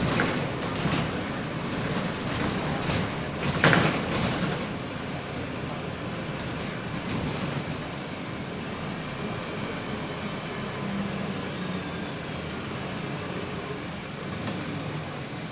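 Bus interior while moving: steady running and road noise with a few sharp knocks near the start and one louder bang about three and a half seconds in.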